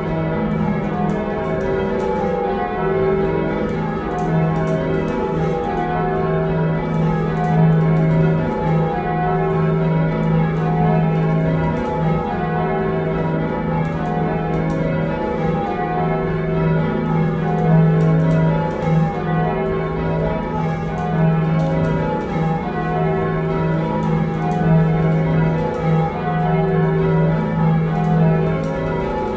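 A heavy ring of six church bells cast by John Taylor & Co in 1925 (tenor 19-3-14 in E-flat), rung full-circle by hand ropes. The bells strike one after another in a steady, unbroken rhythm, their tones overlapping, heard from the ringing chamber below.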